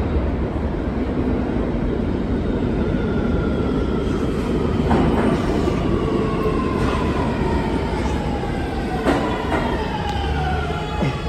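New York City Subway R211 train pulling into the station and slowing: a steady low rumble with an electric whine that falls in pitch as the train slows, and a few sharp wheel clacks over the rails.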